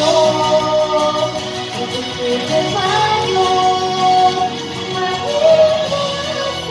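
A female voice singing long, held notes without clear words over a pop backing track, gliding from one sustained note to the next.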